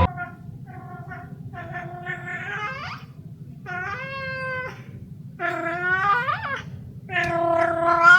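A cat meowing repeatedly, about six drawn-out calls that grow longer and louder, some bending up or down in pitch.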